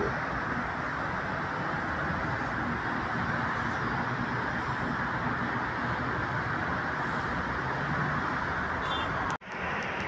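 Steady distant city traffic rumble from busy roads below, an even wash of road noise. The sound cuts out abruptly for a moment about nine seconds in.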